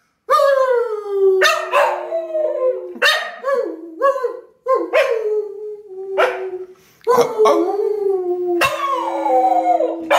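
A man and a golden spaniel howling together: long drawn-out howls that fall in pitch and then hold steady, broken by short yelping notes in the middle. The dog is howling by the end.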